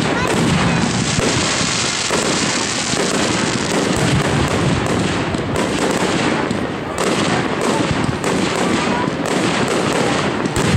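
Aerial firework shells bursting overhead, many bangs in quick succession.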